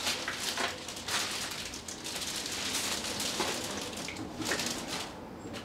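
Clear plastic wrapping crinkling and rustling as a bagged foam model-airplane wing is handled and set back into a foam shipping box, dying down near the end.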